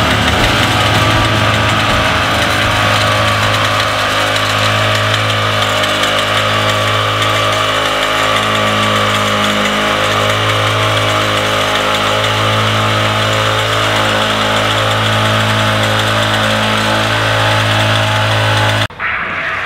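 An engine running steadily at a constant speed. The sound cuts off abruptly just before the end.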